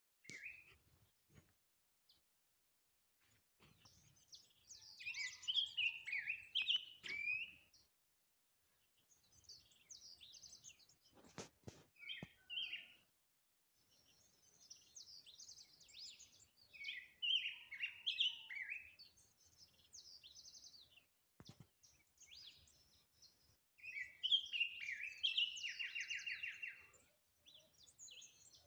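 A black-and-yellow grosbeak, the Andean 'tuya', singing rich warbled phrases a few seconds long with short pauses between them. The last phrase ends in a fast trill.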